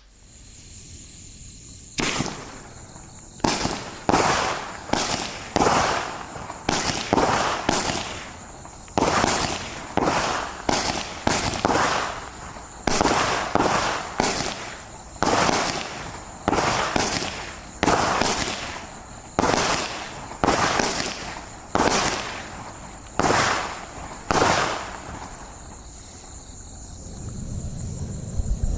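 Funke AC20-16-CG 16-shot green crossette fireworks battery firing: after a couple of seconds of faint hiss, a rapid run of sharp bangs, about one or two a second, each dying away over a moment, as the shots launch and the crossette stars break apart at the top. The firing stops a few seconds before the end.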